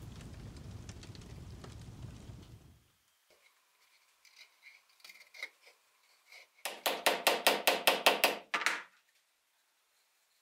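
A steady rushing noise that stops about three seconds in, then faint scraping cuts of a carving gouge paring a small wooden handle block. About two-thirds of the way through comes a quick run of about a dozen light, even taps on the wood over two seconds.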